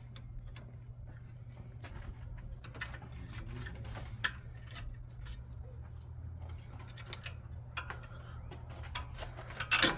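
Irregular metallic clicks and knocks of hand tools working on a minivan's rear brake bracket, with a sharp knock about four seconds in and a cluster of louder knocks near the end, over a steady low hum.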